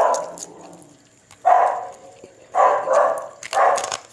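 A dog barking, about five loud barks at irregular spacing.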